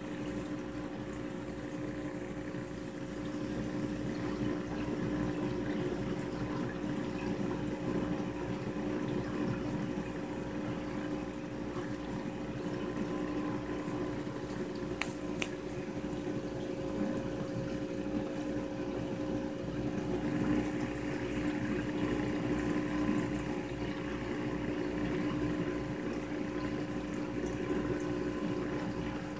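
Saltwater reef aquarium's pumps and powerheads running, a steady hum over the sound of circulating water. Two brief clicks come about halfway through.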